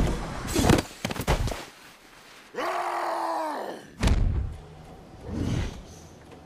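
Movie fight sound effects: heavy thumps and impacts in the first second and a half, a drawn-out cry about two and a half seconds in, then a hard thud about four seconds in as a body lands in snow, and a short low sound near the end.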